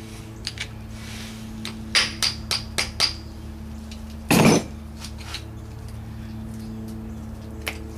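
Five quick hammer blows on the metal of a transmission being torn down, each ringing briefly, then a single louder, longer burst of noise a little over a second later, over a steady low hum. The part being struck is stuck.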